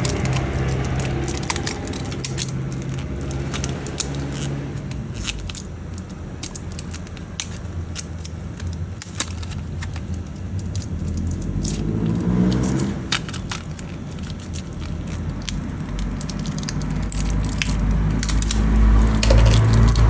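Plastic blister packaging crinkling and crackling in irregular bursts as it is worked and torn open by hand, over a steady low background hum.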